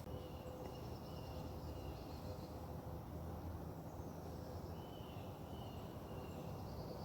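Faint outdoor ambience: a low steady rumble with a few faint, high chirps of distant insects.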